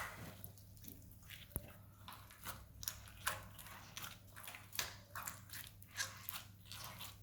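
Slime mixed with foam being squeezed and pulled apart by hand, giving irregular sticky crackles and pops, about two or three a second.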